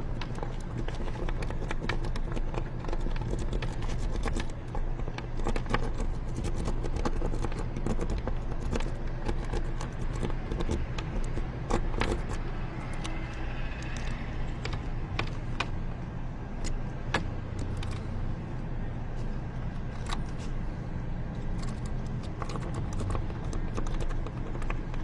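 A vehicle engine idling steadily in the background, with scattered clicks, knocks and clinks of someone rummaging through a pickup truck's cab in search of lost keys.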